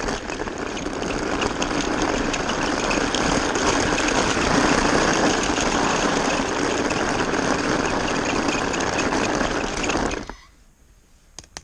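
Small battery-powered Magic Tracks toy car motor running and the toy train rattling along plastic track, heard close up from the car itself. The noise stops abruptly about ten seconds in.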